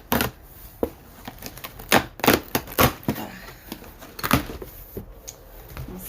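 A shipping box being handled and opened by hand: a series of sharp clicks and crackles of cardboard and packaging, the loudest about two to three seconds in and again a little after four seconds.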